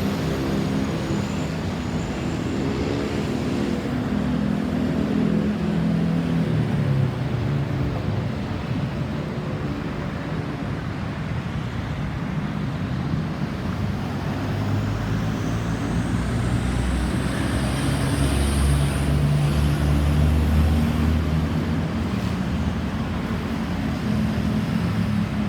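Road traffic: vehicle engines running and passing over steady tyre and road noise, their pitch shifting as they speed up and slow down. A faint high whine rises about sixteen seconds in.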